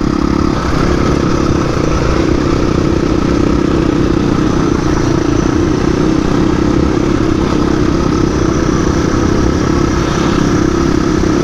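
Dual-sport dirt bike engine running at a fairly steady throttle while riding, its pitch holding nearly level throughout.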